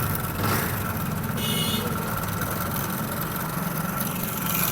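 Honda Pridor motorcycle's single-cylinder four-stroke engine running steadily and making a lot of mechanical noise. The mechanic puts it down to a loose timing chain, and suspects the flywheel magnet's laminations are also touching the stator coil.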